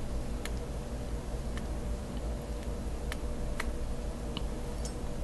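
Faint, irregular ticking crackle, about half a dozen small clicks, from an e-cigarette being drawn on, over a steady low hum.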